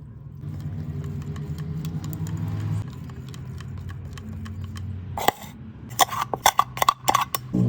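A steady low hum, then from about five seconds in a quick run of sharp clinks and knocks, like utensils or containers being handled.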